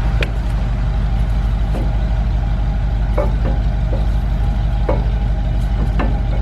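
Steady low rumble of an engine running, with a handful of short clicks and creaks scattered over it as a C-clamp is turned to press the brake caliper pistons back in.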